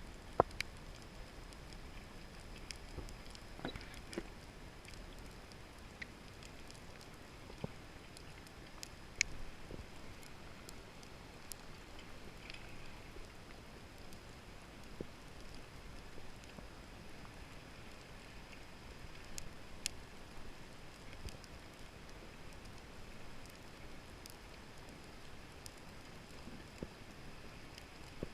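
Underwater ambience: a steady low hiss with scattered sharp clicks and crackles, a few of them louder, one about half a second in and one about nine seconds in.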